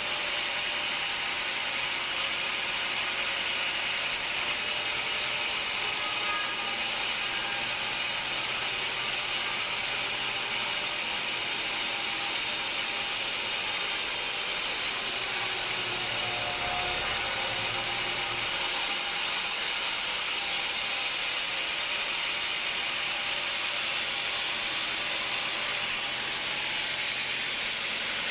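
Sawmill machinery running with a steady hiss, unchanging throughout.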